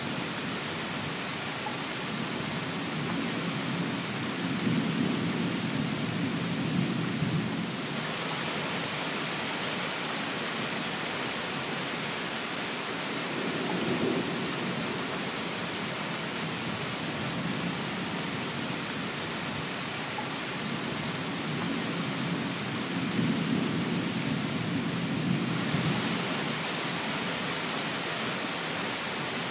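Steady rain with thunder rumbling low in three long rolls, a few seconds in, about halfway and again toward the end.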